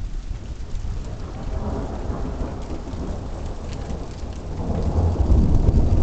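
Thunder rumbling, building from about a second in and growing louder near the end.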